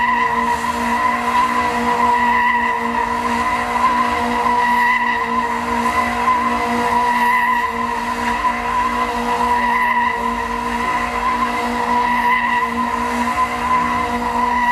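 A stunt car held at steady revs, with a sustained high tyre squeal. The note swells and fades every two to three seconds as the car circles.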